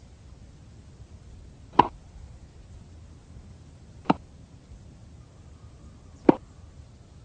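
Tennis ball struck by a racket in a rally: three sharp hits about two seconds apart.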